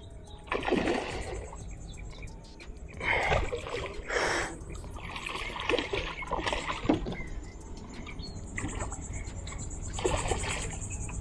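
Water splashing in several separate bursts as a hooked tarpon thrashes at the surface beside a small boat.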